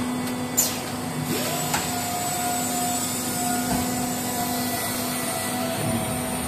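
Automatic press forming diamond saw blade segments, running with a steady machine hum and hiss and a couple of sharp clicks in the first two seconds.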